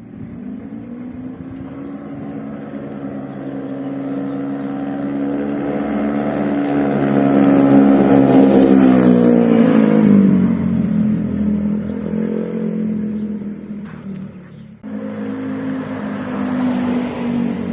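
Honda Vario 125 scooter's single-cylinder engine breathing through an RMS Muffler Sport aftermarket silencer, accelerating on the road: the exhaust note climbs steadily in pitch and loudness for about eight seconds, then falls as the throttle eases off. It drops out briefly about fifteen seconds in, then runs steadily again.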